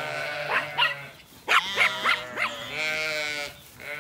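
Zwartbles sheep and lambs bleating: several short calls overlapping through the middle, then one longer bleat held near the end.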